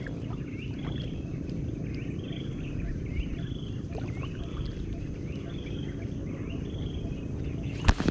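Lakeshore ambience: a steady low rumble with a short, high chirp repeating about every three-quarters of a second, from a bird or insect. Just before the end, a sharp knock and a brief rubbing sound as a finger touches the camera.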